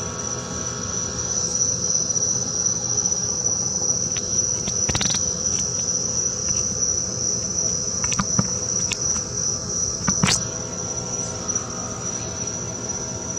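Crickets trilling in one steady, continuous high tone, with a few sharp clicks scattered through the middle, the loudest about ten seconds in.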